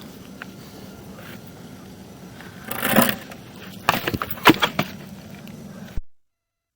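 Knocks and clatters over a steady low hum: a cluster about three seconds in and a series of sharper knocks between about four and five seconds, then the sound cuts out abruptly near the end.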